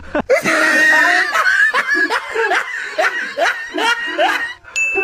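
People laughing loudly: a sudden loud outburst, then a run of rhythmic laughing. A steady high beep starts near the end.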